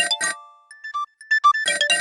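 Nokia 6610 ringtone playing: a quick run of short bell-like notes, several sounding together, which thins to a sparser run of single notes from about half a second to a second and a half in, then picks up again.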